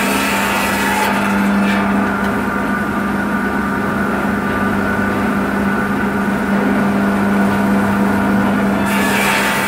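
Electric circular saw bench with a widia (carbide-tipped) blade running with a steady hum. It cuts through a branch at the start, and again near the end when the cradle is pushed into the blade.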